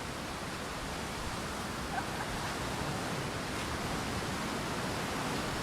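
Steady, even rushing noise of strong wind and rain, with a faint short tick about two seconds in.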